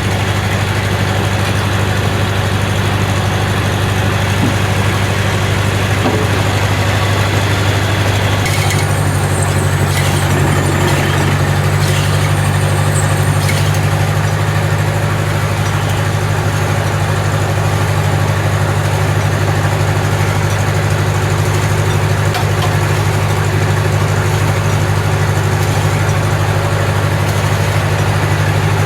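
An engine running steadily at a constant speed; its note shifts slightly about eight seconds in.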